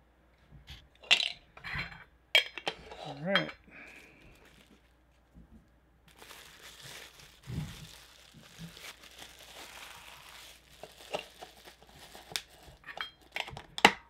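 A clear plastic bag crinkling as it is handled, with scattered clicks and clinks of small items and metal soda cans on a tabletop. A brief hum of a voice comes about three seconds in.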